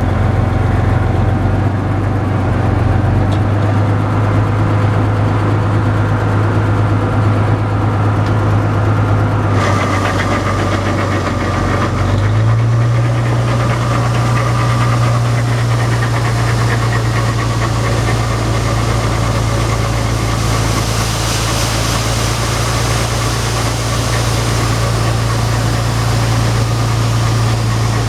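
Combine harvester engine running steadily under load. About ten seconds in, a higher hiss and rattle joins, and shortly after the engine note steps up slightly and holds.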